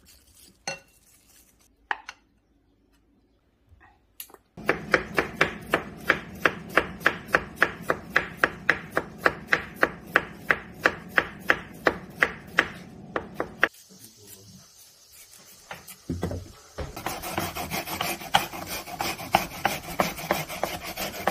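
Chef's knife slicing an onion on a wooden chopping board: quick, even strokes, about four a second, for around nine seconds. A few seconds after the chopping stops, onion is rubbed back and forth on a plastic grater with a steady rasping.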